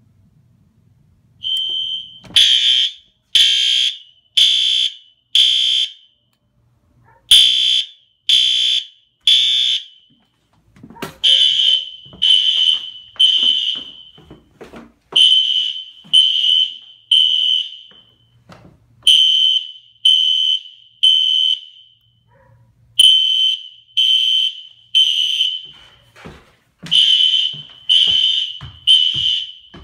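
Fire alarm horn strobes, among them a System Sensor P2RL, sounding the temporal-three evacuation pattern because the panel is in drill mode. They give three short high beeps, a pause, then repeat about every four seconds, starting about a second and a half in.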